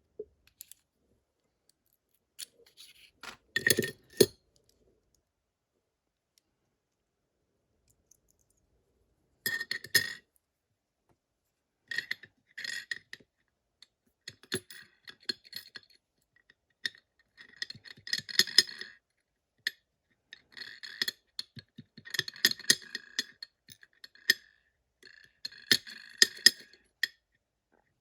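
Small metal parts of a Vachette VIP lock cylinder clicking and clinking as it is taken apart. There is a short cluster about three seconds in, then quiet, then clusters of clinks coming thick and fast from about ten seconds in.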